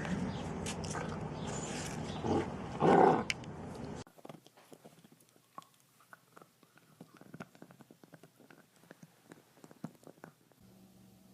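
An animal's vocal sounds with two louder outbursts about two and a half and three seconds in, then an abrupt cut to quiet with faint scattered ticks and a low steady hum near the end.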